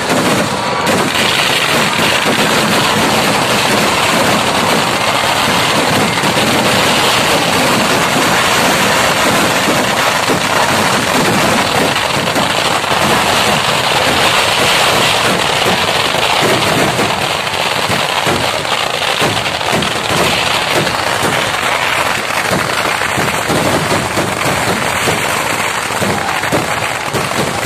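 Kerala temple fireworks (vedikettu) going off in a dense, unbroken barrage: a continuous rattle of firecracker bangs and rocket bursts without a break.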